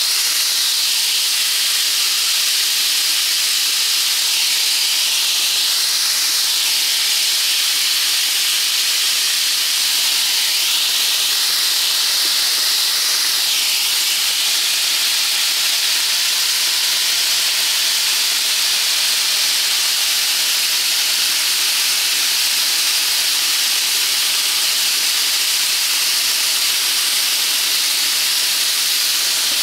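Chicken pieces sizzling on a barbecue grill: a steady hiss that swells slightly now and then.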